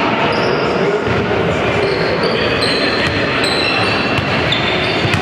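Crowd noise of a basketball game, with a ball bouncing and several short, high sneaker squeaks on the court.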